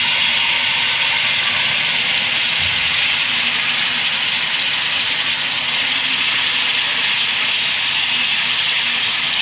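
Wet tamarind pulp sizzling in hot oil in a frying pan: a loud, steady hiss as the watery pulp fries.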